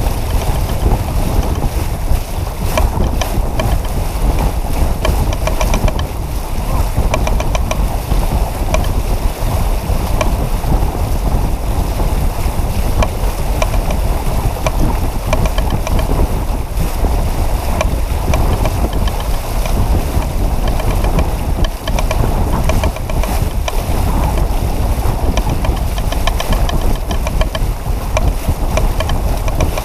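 Wind buffeting the microphone in a steady low rumble, over water rushing past the hull of a J-35 sailboat heeled under sail.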